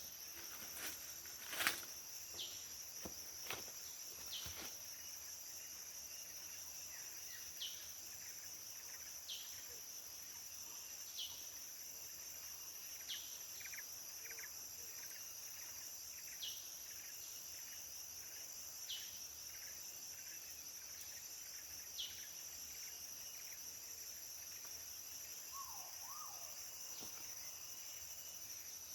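Tropical forest insects, crickets and cicadas, keep up a steady high-pitched drone. Over it a short falling call repeats about every two seconds, with a few sharp knocks in the first few seconds.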